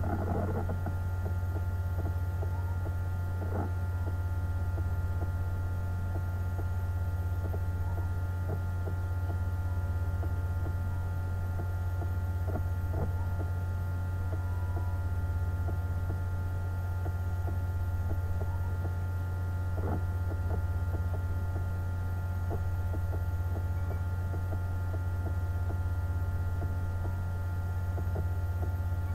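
Steady low electrical hum, with several steady higher tones above it and a few faint ticks.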